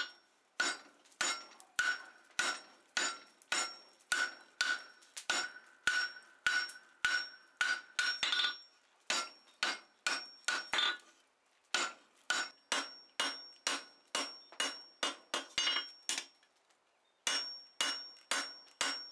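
Hand hammer striking a red-hot 1¼ by 3/16 inch flat steel bar on the anvil, drawing out a taper. The blows come about two a second, each ringing, with two short breaks in the second half.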